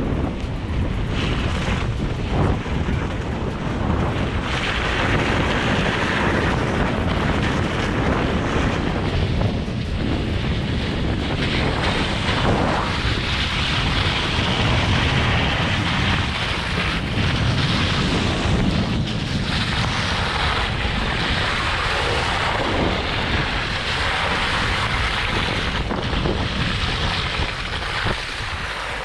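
Jeep CJ-7 engine running under load while driving through mud, with a dense rushing noise and wind buffeting the microphone.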